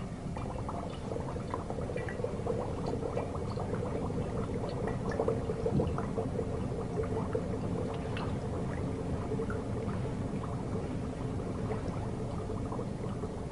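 Dry ice bubbling in a beaker of water, a steady boiling-like burble full of small pops as it turns to gas.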